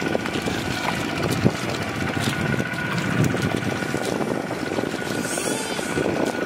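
Steady drone of a small engine running, typical of a two-wheel hand tractor's engine, with a few faint clicks over it.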